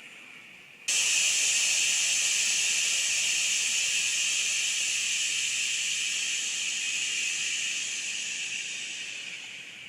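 Compressed air hissing out of a Huben K1 PCP air rifle's air cylinder as the regulator fitting is loosened to empty it. The steady hiss starts suddenly about a second in and slowly weakens near the end as the cylinder runs out of air.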